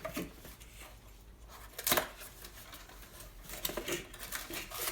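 Rustling and crinkling of packaging as small plastic spare parts are handled, with scattered clicks and one louder sharp rustle about two seconds in.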